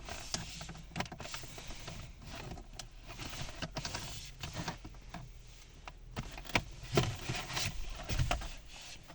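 Plastic toy figure and its packaging being handled while it is freed from the retaining ties: rustling and scraping with scattered clicks and knocks, the sharpest a little after six seconds in and around seven and eight seconds.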